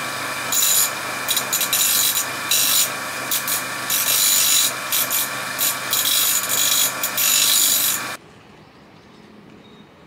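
Electric grinder running with a steady motor whine while the steel tip of a pair of hand-forged tailor's shears is pressed to the wheel in repeated short grinding passes to shorten the tip. It stops abruptly about eight seconds in.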